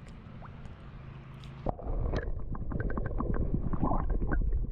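Close water sloshing and gurgling with irregular splashes as a caught smallmouth bass is released into the creek, starting suddenly with a click about two seconds in.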